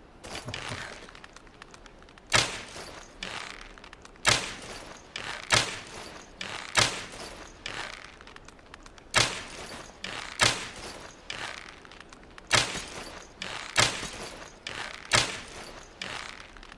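Longbow being shot again and again: about ten sharp cracks at uneven intervals of one to two seconds, with softer rustling between shots.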